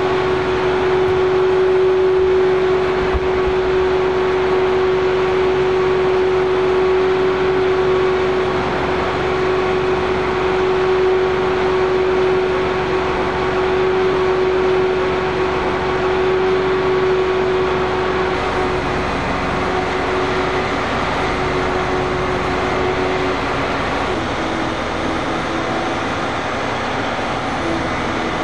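A large engine running steadily and loudly, with a strong steady hum over a rushing noise; after about twenty seconds the hum weakens and settles slightly lower in pitch.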